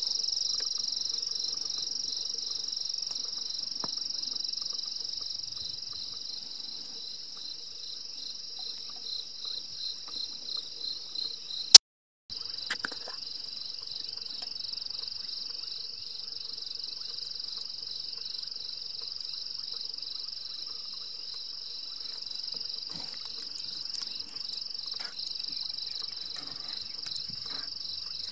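Steady high-pitched chorus of night insects, pulsing for a few seconds before a sharp click and a half-second dropout about twelve seconds in. Faint clicks and handling noises come through under the chorus near the end.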